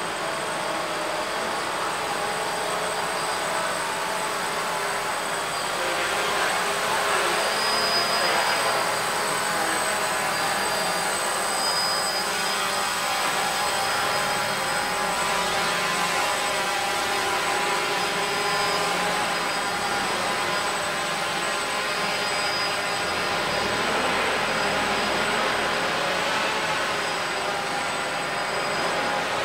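Small quadcopter drone flying: the steady whine of its electric motors and propellers, with the pitch shifting as it manoeuvres.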